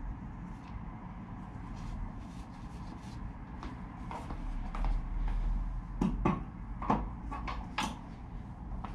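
Scattered sharp clicks and knocks of a wrench and metal parts being worked on a Manitou suspension fork's rebound side, coming thicker in the second half, over a low steady hum.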